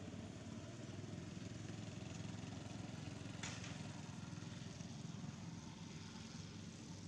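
A small engine running steadily, a faint low hum, with a short scratch about three and a half seconds in.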